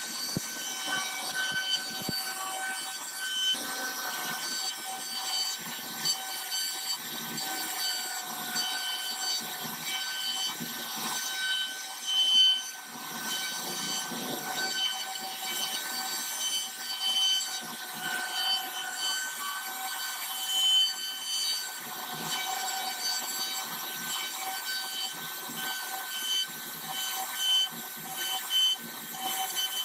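CNC router spindle running with a steady high whine while the bit cuts a design into khat wood. A rough, uneven noise from the cut rises and falls under the whine, with a few brief louder moments, the loudest about twelve seconds in.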